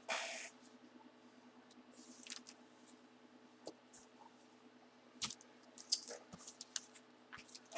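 Faint handling noise from trading cards and their plastic holders being moved about: a brief louder rustle at the start, then scattered rustles and sharp clicks, busier in the second half.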